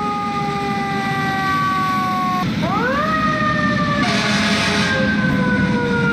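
Fire truck siren wailing: its pitch falls slowly, sweeps quickly back up about two and a half seconds in, then falls slowly again, over a steady low rumble of engine and traffic. A brief hiss sounds about four seconds in.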